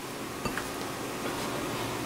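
Quiet room tone: a steady low hum and hiss, with one faint click about half a second in.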